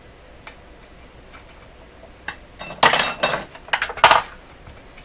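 Small hard objects, tools and radio parts, clinking and clattering against the workbench. A few light ticks come first, then a burst of sharp clatter from about two and a half to four and a half seconds in.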